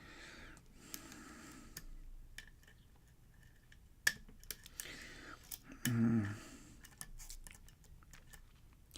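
Lock pick clicking and scraping on the pins inside a pin-tumbler lock during single-pin picking: scattered small clicks, the sharpest about four seconds in. A brief hummed voice sound near six seconds.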